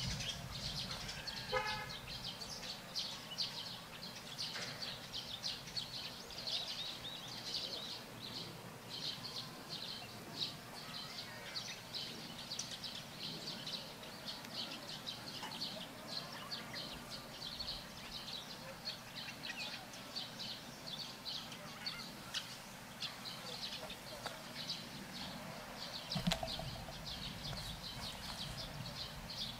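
Birds chirping: a dense, continuous run of short high calls over a low, steady background noise.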